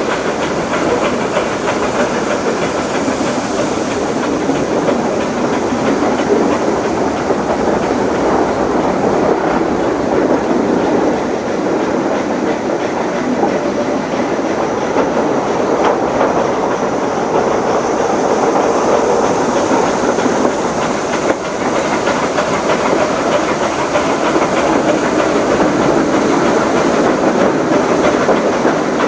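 Nilgiri Mountain Railway coaches rolling along the track: the steady running noise of wheels on rails, heard from an open coach doorway.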